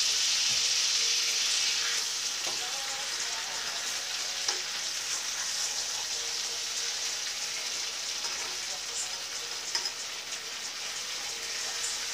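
Alaskan cod fillets searing in a skillet, a steady sizzle that is loudest in the first couple of seconds as the fish is flipped, with a few light taps of the spatula against the pan.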